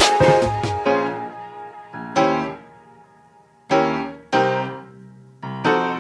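Background music: soft piano chords struck one at a time, each left to fade, about five in all.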